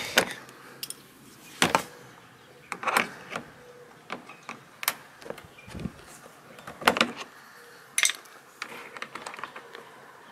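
Plastic push-pin clips being pried out of a Subaru Crosstrek's front fender liner with a screwdriver: scattered sharp clicks and knocks of plastic, about ten at irregular intervals.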